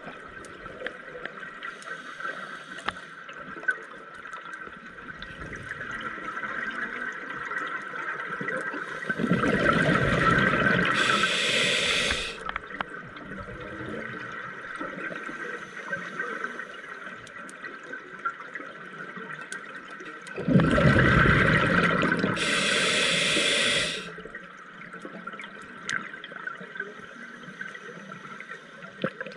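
Scuba regulator breathing underwater: two breaths about eleven seconds apart, each a rush of exhaled bubbles followed by a sharp hiss, over a steady low underwater background with scattered faint clicks.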